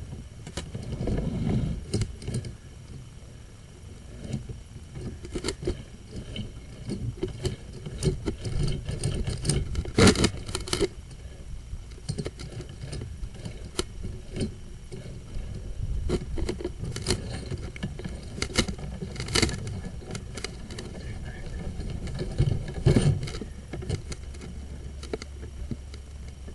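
Sewer inspection camera and its push cable knocking and scraping irregularly against corroded cast iron drain pipe as the camera is worked along it, over a low rumble. The sharpest cluster of knocks comes about ten seconds in.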